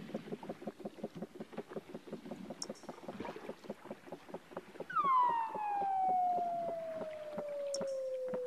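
Weddell seal calling underwater beneath the sea ice: a fast, even train of pulses, then about five seconds in a loud, long whistle that glides steadily down in pitch.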